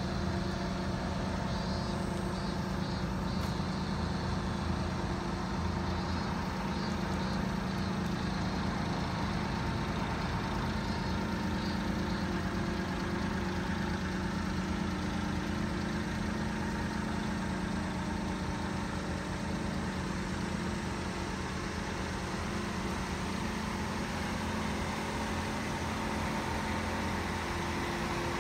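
Mitsubishi Minicab kei truck's small three-cylinder engine idling steadily.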